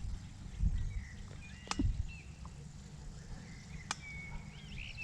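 Wind buffeting the microphone with a low rumble that swells twice, small birds chirping and whistling, and two sharp clicks about two seconds apart.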